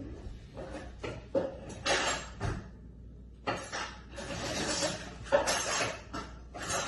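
Kitchen utensils clinking and knocking against a bowl, a few separate knocks, then a longer stretch of scraping from about three and a half seconds in.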